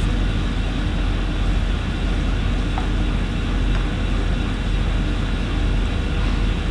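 Chopped onions and ginger-garlic paste frying in oil in a nonstick pan: a steady hiss over a continuous low hum, with a couple of faint ticks about three seconds in.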